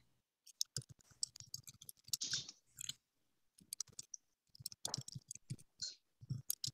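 Typing on a computer keyboard: a run of quick, irregular key clicks with a short pause about three seconds in.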